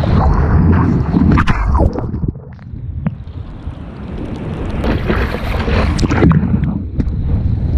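Wind buffeting the microphone over water splashing around a stand-up paddleboard in the surf. It eases off about two and a half seconds in and builds again after about four seconds.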